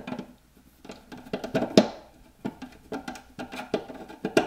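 A screwdriver and stiff copper wires clicking and knocking irregularly against a plastic inlet plug and the transfer switch's sheet-steel enclosure while ground wires are fastened under a screw.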